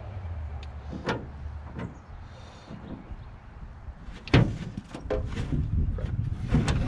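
Knocks and scrapes of a Coosa board panel being shifted and pressed against a jon boat's transom. There are several knocks, and the loudest is a sharp one about four and a half seconds in.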